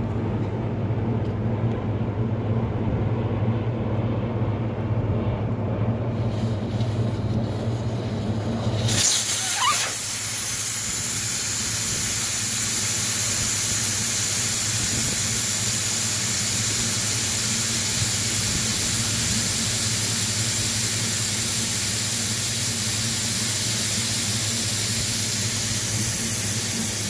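A pickup truck's engine idling as a low, steady hum. About nine seconds in it gives way to a steady, loud hiss of air escaping from a tyre valve as a deflator tool lets the tyre down toward 15–20 psi.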